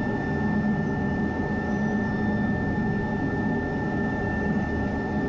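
Jet engine running steadily: a constant high whine over a dull rumble.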